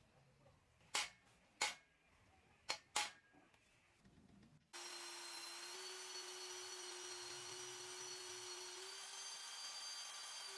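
Four sharp metallic taps, then about halfway through an electric power tool's motor switches on abruptly and runs at a steady speed with a constant whine.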